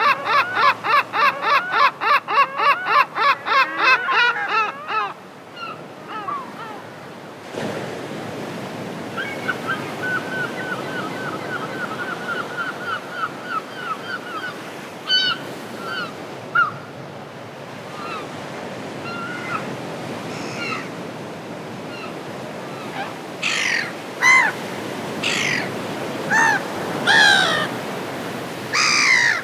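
Gulls calling: a fast run of repeated cries for the first four seconds. After a change, surf washes under more gull calls: a rapid chattering series, then scattered loud cries near the end.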